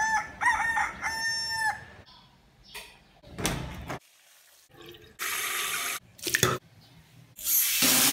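A rooster crows, one long call that ends about two seconds in. Then water runs from a tap and splashes, in several separate bursts.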